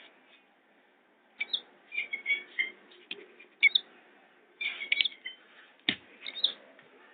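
Red-wattled lapwing chick calling in short, high peeps that come in clusters every second or so. There is one brief low thump a little before six seconds in.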